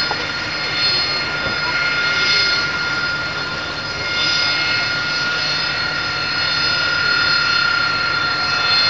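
AV-8B Harrier jump jet's Pegasus turbofan engine running close by: a loud, steady jet roar with a high whine of several steady tones riding on it.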